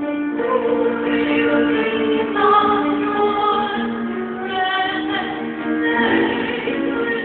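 A solo female voice singing long held notes, accompanied on a grand piano.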